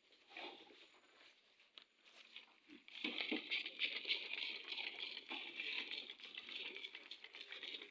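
Goats chewing and tearing at grass close to the microphone: a dense crackling and rustling full of small crunches that starts about three seconds in and carries on.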